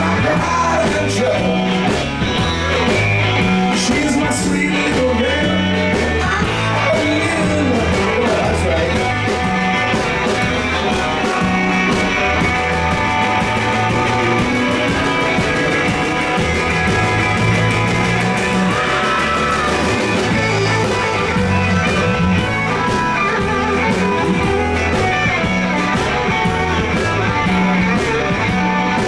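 Live blues-rock band playing a shuffle: electric guitars and bass over a steady rolling beat, with a singer.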